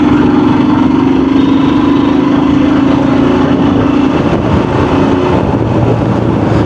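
Motorcycle engine running at a steady speed while riding in traffic, heard through a clip-on wireless mic, with road noise. The steady engine note drops away about four seconds in.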